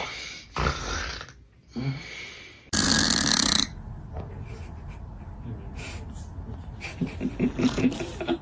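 Snoring: several short snorts in the first two seconds, a loud harsh breath about three seconds in, then a steady rasp and a fast stuttering snore near the end.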